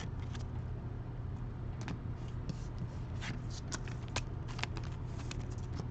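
Trading cards being handled and slid through the fingers: scattered light clicks and rustles of card stock, over a steady low hum.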